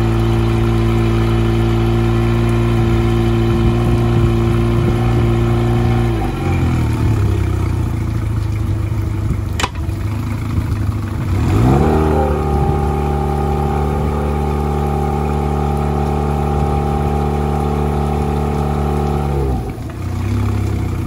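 Mercury FourStroke outboard running on the trailer, held at raised revs, then dropping back to idle about six seconds in. A sharp click comes near the ten-second mark, the engine revs up again just before twelve seconds and holds steady, then falls back to idle near the end.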